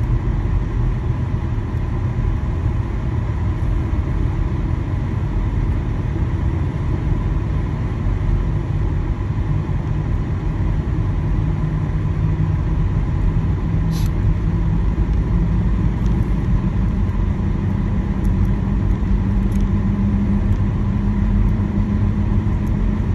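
Car driving on a snowy, slushy road, heard from inside the cabin: a steady low rumble of tyres and engine, with a low hum that rises a little in pitch partway through. A faint click comes about 14 seconds in.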